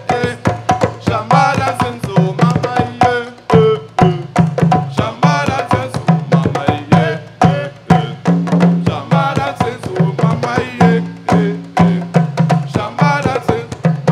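An ensemble of djembe hand drums playing a fast, steady rhythm, with deep pitched bass strokes and sharp slaps, and a voice singing over the drumming.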